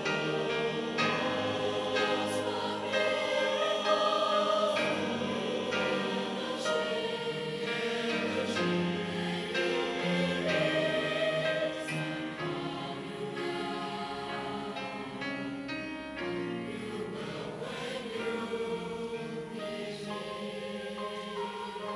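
Mixed choir of men's and women's voices singing together in parts, holding sustained notes. Louder through the first half, softer in the second.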